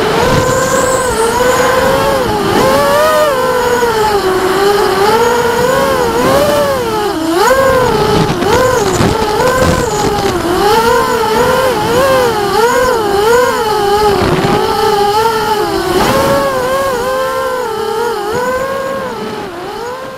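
ImmersionRC Vortex 285 racing quadcopter's motors and propellers whining in flight, heard close from its onboard camera. The pitch rises and falls constantly with the throttle. The sound fades out near the end.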